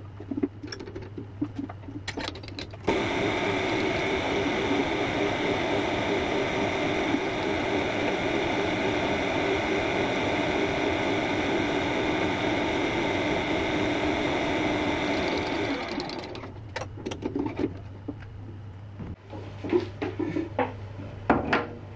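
A metalworking machine drilling a hole in a metal tool-holder block, its motor and the cut running steadily for about twelve seconds. It starts about three seconds in and stops near sixteen seconds. Clicks and knocks of metal handling come before and after it, over a low hum.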